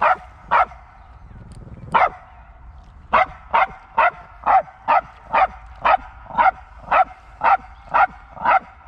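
A dog barking repeatedly in short yaps: a few at first, then after a short gap a steady run of about two barks a second from about three seconds in. The owner puts the barking down to jealousy.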